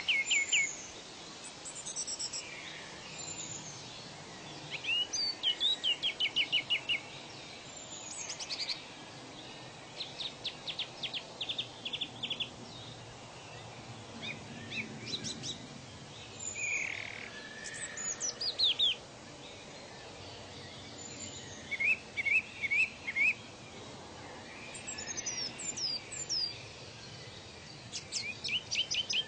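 Several songbirds singing: short trills of rapidly repeated notes and quick falling whistles, a phrase every second or two, over a steady background hiss.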